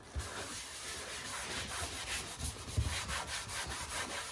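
A rag wet with acetone rubbing over the inside of a metal Kennedy tool box drawer: a steady scrubbing rub that swells and fades with the strokes, wiping out old glue residue.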